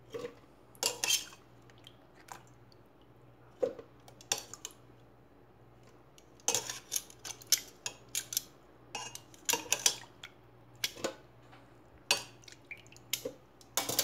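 Irregular clinks and knocks of a kitchen utensil against a glass bowl and a plastic blender jar, as boiled pineapple peels and core are scooped out and dropped into the jar.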